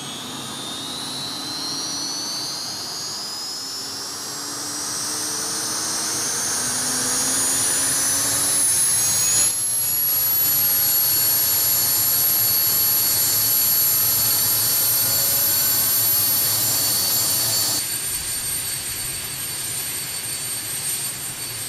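CH-47 Chinook gas-turbine engine spooling up: a high whine rising in pitch for about ten seconds over a steady rush, then holding at a steady pitch, slightly quieter near the end.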